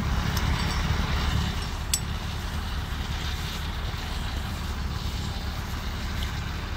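An engine idling with a steady low rumble, with wind noise on the microphone. A single sharp click about two seconds in.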